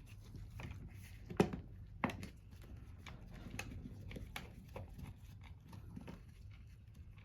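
Small clicks and knocks of pump parts being handled as a cover is fitted back on, with a sharper click about 1.4 s in and another about 2.1 s in, over a faint steady low hum.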